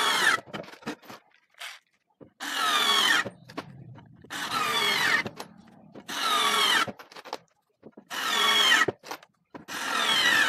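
Daewoo 3.6 V cordless lithium screwdriver running in short bursts of about a second, about five times, with gaps between. Its whine falls in pitch during each run.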